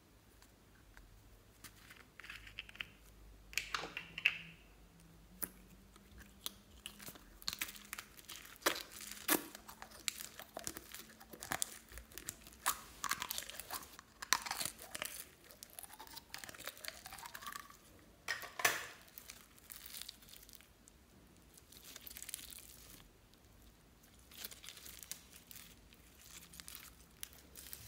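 Foam-bead (floam) slime being pulled out of its small plastic jar and pressed into a bowl of foam beads, crackling and crunching in a run of small pops and crinkles that is busiest in the middle, with one short rising squeak about halfway through.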